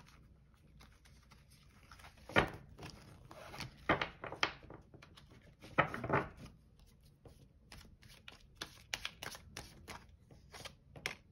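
Tarot cards being shuffled and handled: irregular rustles and clicks, with a quicker run of clicks in the last few seconds.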